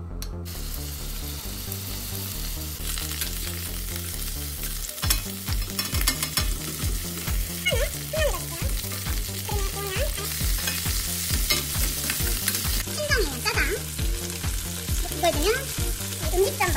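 Chicken drumsticks sizzling in hot oil in a stainless steel pan, the sizzle starting about half a second in as the blanched pieces go into the pan and then running steadily. The chicken is being browned in oil before it is braised.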